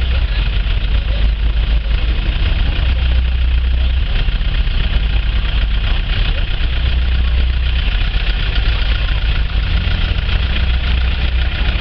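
Car engine running at low speed as the car crawls along, a steady low rumble with constant hiss.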